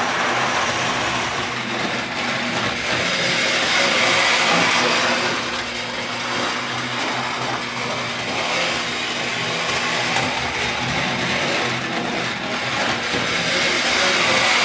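Vintage Tri-ang OO-gauge model locomotive running round the track: a motor whirring and wheels rattling on the rails, getting louder about four seconds in and again near the end. Under it runs the steady electrical hum of the old 1950s–60s power controller.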